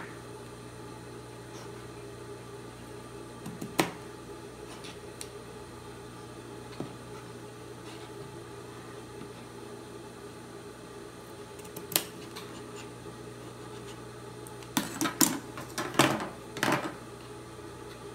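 Scissors cutting through layered cotton fabric: a few isolated snips, then a quick run of several snips and handling clicks near the end, over a steady low hum.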